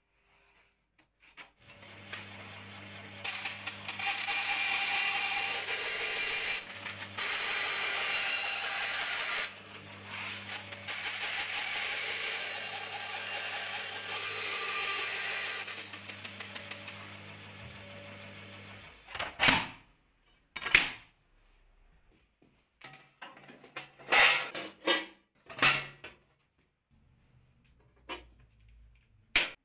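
Bandsaw running and cutting a thin metal sheet: a steady motor hum under a loud hiss of the blade through the metal, with a couple of brief breaks, stopping about two-thirds of the way through. After that come a series of separate sharp metallic knocks and clanks.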